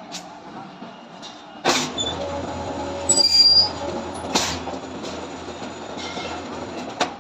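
Electric steel-bar bending machine running. A steady motor hum starts with a sharp metal clank about a second and a half in. A high metallic squeal follows around three seconds in, then another clank about four and a half seconds in.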